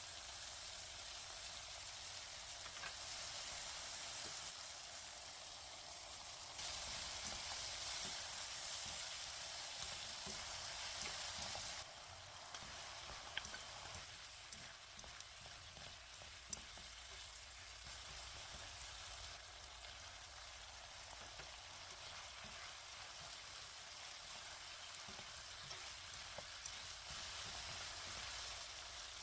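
Tofu and Spam sizzling in oil in a frying pan: a steady frying hiss that grows louder for about five seconds, then settles. Two light clicks come in the middle.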